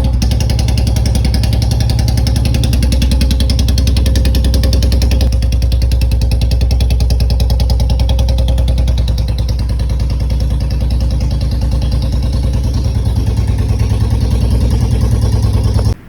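Royal Enfield Bullet's single-cylinder engine running steadily after its oil change, stopping suddenly near the end.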